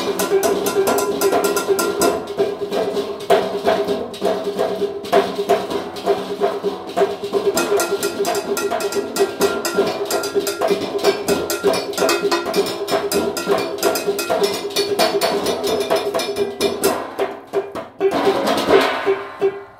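Stainless-steel pots and pans drummed by several players together in a fast, steady rhythm of metallic taps and slaps, with the pans ringing. The playing drops away briefly near the end, then picks up again.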